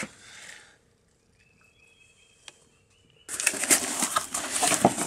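Packing material crinkling and rustling as a small cardboard accessory box is opened and its contents handled, starting suddenly about three seconds in after a quiet stretch.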